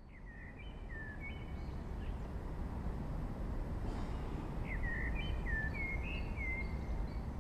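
A small songbird singing two short chirping phrases a few seconds apart, over a low steady background rumble.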